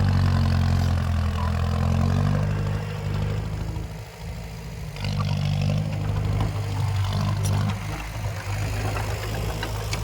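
Diesel engine of heavy earthmoving machinery running with a low, steady note. It eases off briefly about four seconds in, then picks up again.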